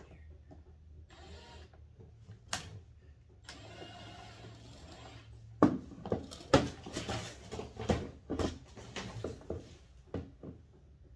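Cordless drill-driver running in a short steady whirr, driving a bolt into a plastic toy car's steering column, followed by a run of irregular sharp clicks and knocks of the driver and plastic parts being worked.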